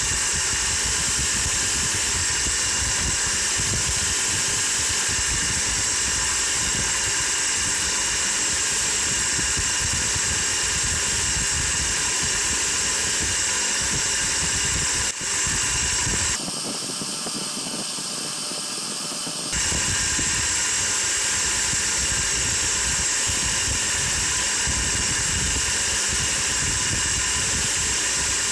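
Electric bench polisher running steadily, its wheel spinning with a constant whirring hum while small metal parts are held against it to polish them. For about three seconds past the middle the sound thins and drops slightly.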